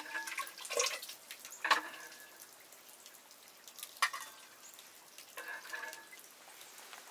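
Metal cooking pots and utensils knocking and clinking a few times, several strikes ringing briefly, with dripping and splashing water.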